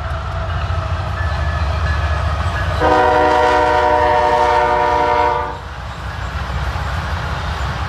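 Diesel-hauled freight train with covered hopper cars rumbling steadily past. About three seconds in, the locomotive's horn sounds one long chord of several tones for about two and a half seconds, then cuts off.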